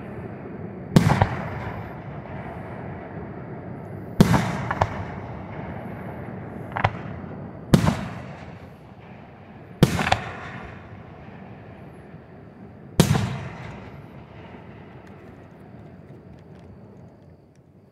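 Aerial firework shells bursting overhead: five loud booms about every three seconds, with a couple of smaller cracks between them. Each boom is followed by a long rolling rumble that dies away slowly.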